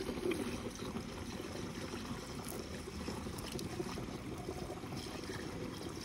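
Liquid pesticide mixture poured from a plastic bucket in a steady stream into a backpack sprayer's plastic tank.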